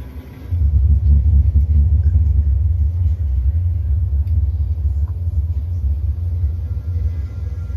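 Deep bass rumble played back through Panasonic SB-PM17 bookshelf speakers, coming in suddenly about half a second in and then holding steady and loud.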